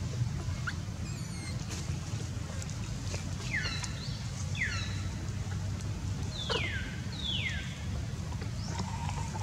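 A baby monkey giving four thin, high squeals, each sliding steeply down in pitch, in two pairs a couple of seconds apart, over a steady low background rumble.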